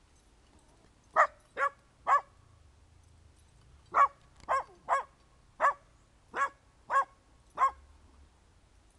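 Buckley mountain feist pup barking at two squirrels in a tube cage: three quick sharp barks, a pause, then a run of seven more at a steady pace.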